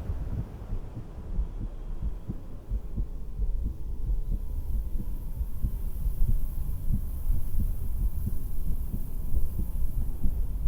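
Human heartbeat heard through a stethoscope: a steady run of low, dull thumps.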